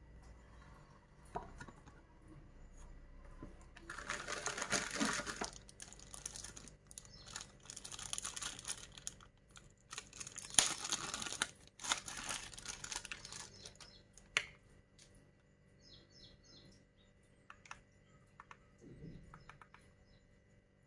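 Thin clear plastic packaging bags rustling and crinkling in three long bursts as a remote control is pulled out of its bag, with a few sharp clicks among them. Only a few faint light ticks follow near the end.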